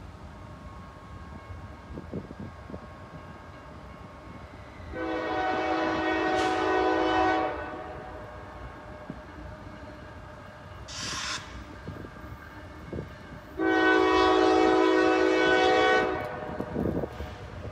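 Diesel freight locomotive's air horn blowing for a grade crossing as the train approaches: two long blasts, each a chord of several steady notes, about six seconds apart, with a brief higher-pitched sound between them.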